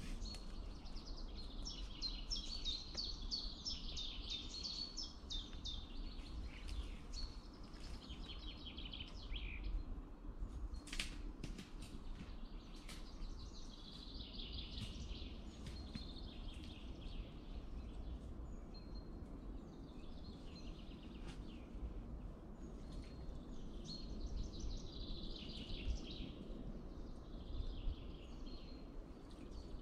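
Songbirds singing in repeated phrases throughout, over a steady low rumble, with a couple of sharp clicks about eleven seconds in.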